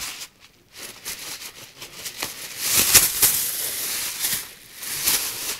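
Scuffling and rustling close to the microphone as a cat tussles with a hand on bedding. It comes in irregular noisy bursts, loudest in the middle.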